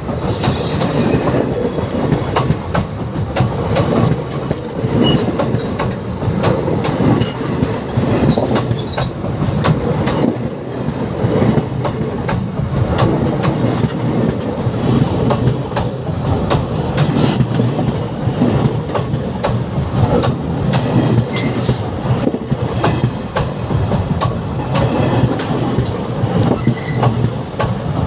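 Indian intercity express passenger train running: a steady rumble of the coaches with frequent clicks of the wheels over rail joints.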